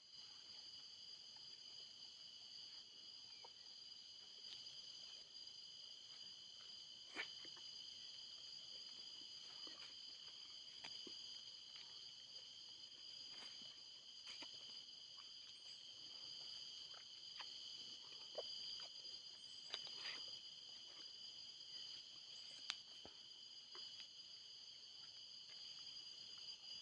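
Steady insect chorus: a continuous high buzzing at two held pitches, with scattered faint clicks and snaps.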